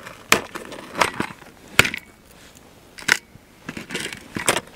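About five sharp crunching clicks at irregular intervals, the loudest a little under two seconds in and about three seconds in.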